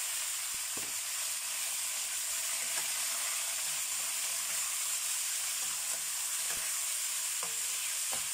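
Seasoned chicken pieces sizzling in hot oil in a frying pan as they are stir-fried, turned with a metal spatula, with a few light scrapes of the spatula against the pan.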